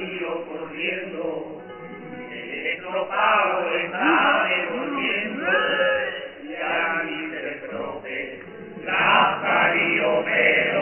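Chirigota, an all-male carnival chorus, singing in unison with acoustic guitar accompaniment.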